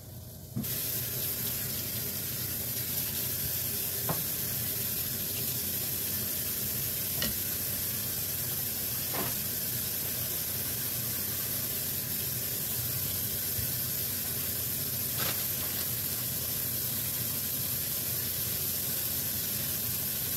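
Vegetables sizzling steadily in a covered frying pan on an electric burner turned up to high, with a few faint pops. The sizzle comes in abruptly about half a second in.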